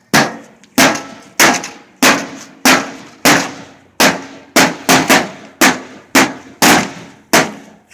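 Rubber mallets hitting the metal casing of a microwave oven, more than a dozen blows in a steady rhythm a little over half a second apart. Each blow is a clang that rings briefly.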